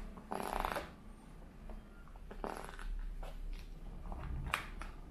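Handling noise from a plastic sushi mould used to press sticky rice: short scraping, rustling bursts as the mould is pressed, then a couple of sharp plastic clicks near the end as the mould frame is lifted off.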